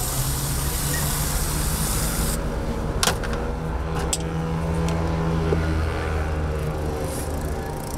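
Street traffic: a vehicle engine running with a steady low hum, joined by a loud hiss that cuts off sharply a little over two seconds in, and a few sharp clicks.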